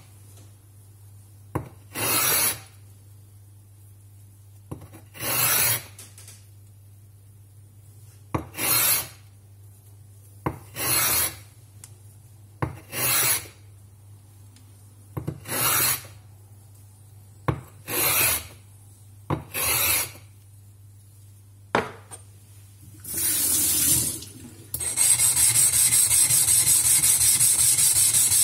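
A Nagura stone rasping against a lapping plate as its edges are chamfered: short single scrapes every two to three seconds. Near the end it becomes a long unbroken run of quick back-and-forth scrubbing.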